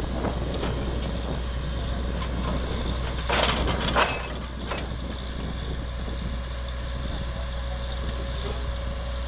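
Truck-mounted borewell drilling rig running steadily with a low, continuous drone as it drills, with a brief burst of noise and a sharp knock about three to four seconds in.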